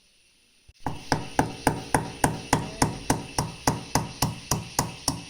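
Black peppercorns and ginger being pounded to crush them, a steady run of sharp knocks at about three to four strikes a second, each ringing briefly, starting about a second in.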